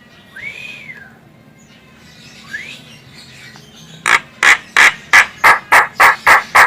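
Javan myna (jalak kebo) calling: a single arched whistle, then a short rising whistle, then a run of about nine loud, harsh calls at about three a second near the end.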